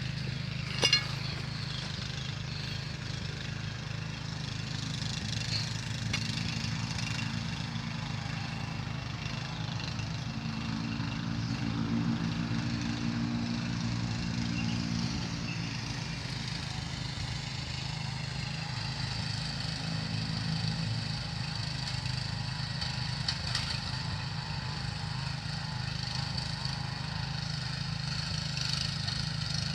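Small engine of a motorised cultivator plough running steadily, with one sharp click about a second in.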